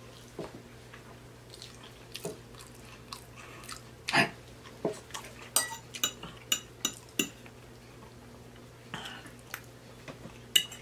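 Eating sounds: a metal fork clinking and scraping against a plate of food, with a quick run of sharp clinks about halfway through, and chewing between them.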